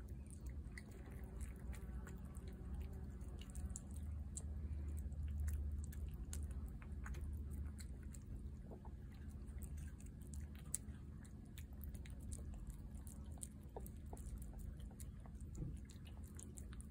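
A tabby cat chewing and lapping wet food from a plate, with quick irregular clicks and smacks throughout. A low steady rumble runs underneath.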